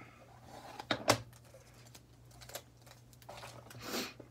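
A hard plastic card case and its foam inserts being handled: a couple of sharp plastic clicks about a second in, then a brief rustle near the end.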